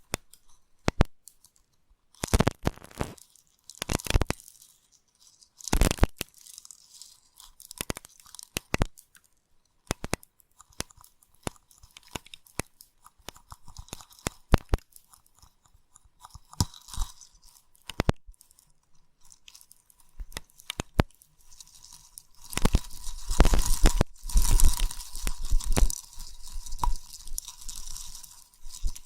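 Slime pressed and poked against the microphone for a mock ear cleaning: scattered sticky clicks and short crackles, turning into a denser, louder run of crackling with a low rumble about twenty-two seconds in.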